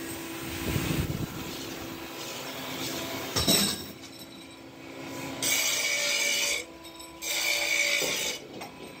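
Cast aluminium motorcycle brake shoes clattering as they are handled and tipped into a perforated drum machine, over a steady machine hum. There is a sharp knock about three and a half seconds in and two loud stretches of rattling in the second half.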